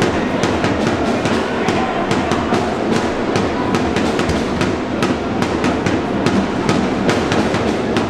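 Drumming and steady crowd noise in an ice hockey arena, with many sharp clacks scattered throughout.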